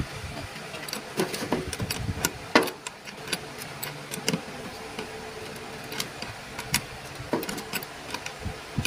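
Scattered light metallic clicks and taps of hand tools on the screws and metal housing of a jacuzzi air blower motor being reassembled, the sharpest tap about two and a half seconds in, over a faint steady hum.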